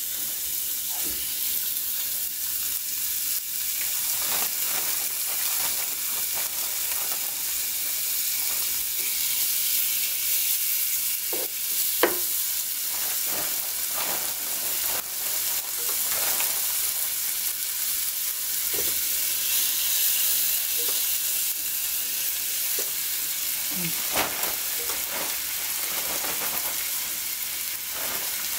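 Seasoned shrimp sizzling in hot oil in a nonstick pan with diced onions and bell peppers as more shrimp are laid in. The steady frying hiss is broken by scattered clicks and taps, the sharpest about twelve seconds in and again near twenty-four seconds.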